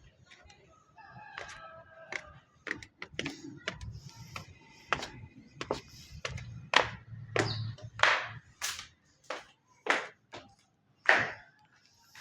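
A bird giving a series of short, harsh calls, loudest and closest together in the second half.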